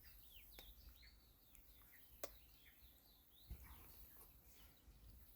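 Faint birds chirping and calling in short, quick notes, with a couple of soft clicks.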